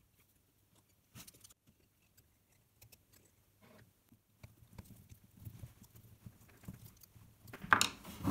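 Light clicks and taps from hands handling a battery pack of cylindrical NiMH cells and its wired terminal block. The handling noise builds and ends in a louder clatter near the end.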